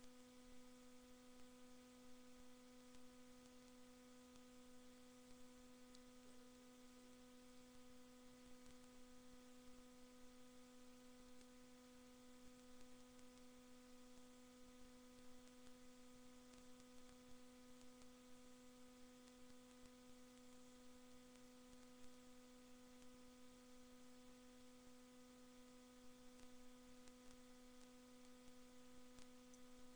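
Near silence with a steady electrical hum: a constant low tone with a fainter overtone an octave up, unchanging throughout.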